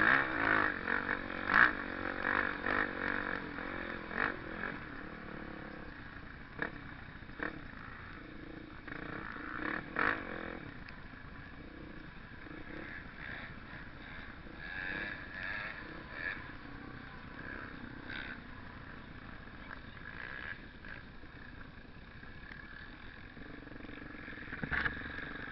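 Off-road trail motorcycle engine running, louder for the first few seconds and then lower, with scattered short knocks and clatters.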